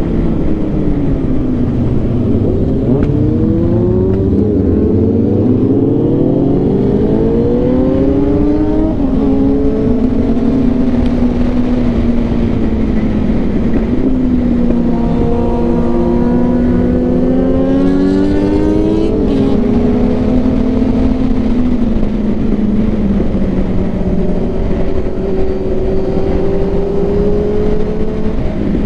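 Sport motorcycle engine under way, falling in pitch in the first seconds, then climbing and dropping back through several gear changes before settling to a steadier cruise, over a constant rush of wind and road noise.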